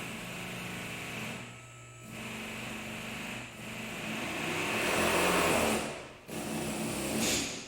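A small machine or power tool running in stretches of a second or two with short breaks, loudest about midway through.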